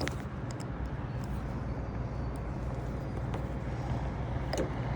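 Steady low mechanical hum, with a sharp click at the start and another near the end, and a few faint small ticks between.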